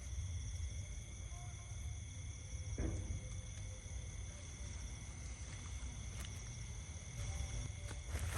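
Insects chirring in a steady chorus of thin, high, unbroken tones, over a low rumble of wind on the microphone.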